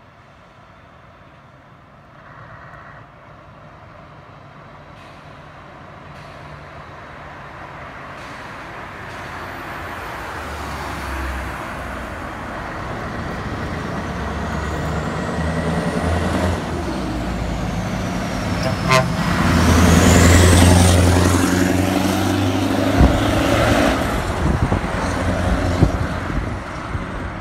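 Heavy diesel lorry driving past, its engine note growing steadily louder as it approaches. It is loudest about two-thirds of the way through, then drops away suddenly and fades as the lorry pulls off.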